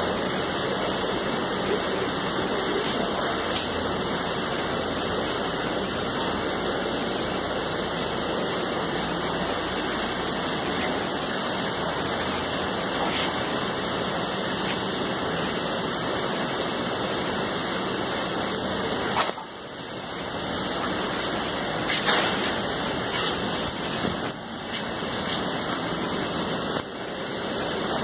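Steady rush of running water, with the level dipping briefly a few times in the second half.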